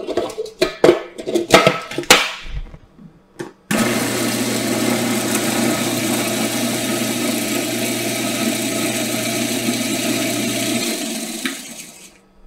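A few clicks and knocks as the food processor's lid is fitted and locked, then the food processor's motor runs steadily for about seven seconds, blitzing pretzel crumbs with sugar and melted butter, and winds down near the end.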